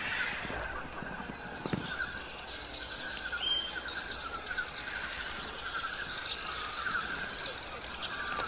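A continuous chorus of rapid, high chirping and trilling calls from small animals, with scattered higher chirps over it.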